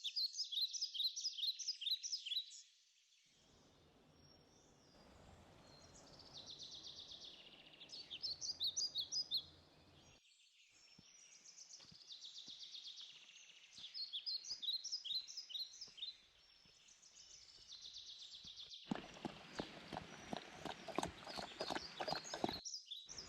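Wild birds singing, with repeated phrases of short high chirping notes, over a steady rhythm of footsteps on a trail. The sound breaks off and changes suddenly several times.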